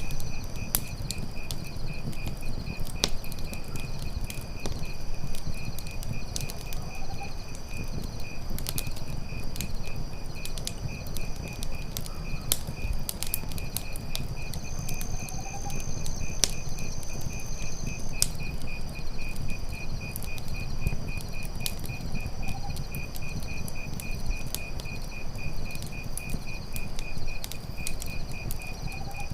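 Campfire burning, with frequent sharp crackles and pops over a low rumble of the flames. Insects chirp in a steady, fast-pulsed high trill throughout, and a faint short rising call recurs every several seconds.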